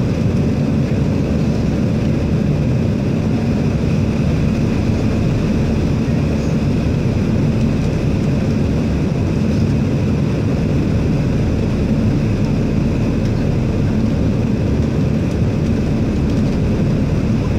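Steady cabin noise of an airliner in flight: a deep, even drone of engines and rushing air, with a faint high whine above it.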